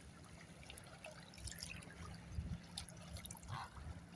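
Faint trickling water with scattered small clicks.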